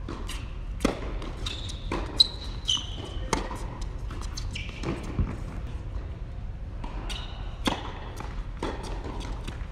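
Tennis ball struck by rackets and bouncing on an indoor hard court: a string of sharp pops and thuds, with short squeaks of tennis shoes on the court surface between them. The sounds echo in a large hall.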